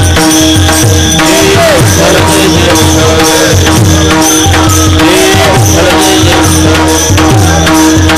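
Devotional kirtan music: fast hand-drum strokes that bend in pitch, jingling cymbal strikes and a steady held drone note.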